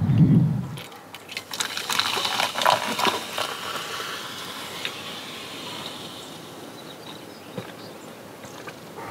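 A drink poured from a glass bottle into a cup, splashing for a few seconds and then fading into a soft fizzing hiss. A brief low rumble comes before it at the start.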